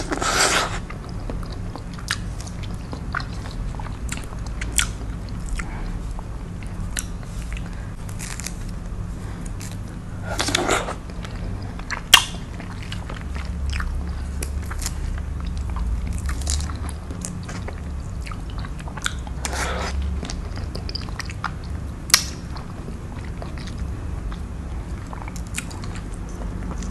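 Close-up eating of fresh rambutan: wet chewing and sucking on the juicy flesh, with a louder wet slurp three times, and small clicks and cracks from the rind being torn open by hand. Two sharp clicks, about ten seconds apart, are the loudest sounds.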